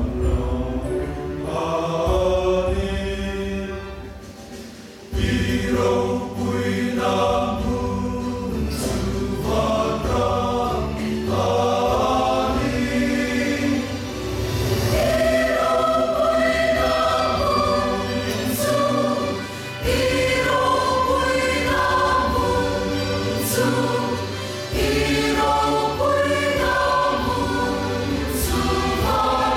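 A large church choir of men and women singing a hymn together, with a short break between phrases about four to five seconds in.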